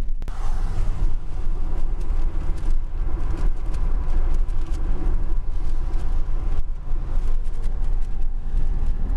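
Road and wind noise inside a moving car at highway speed: a steady low rumble. It drops out briefly just after the start.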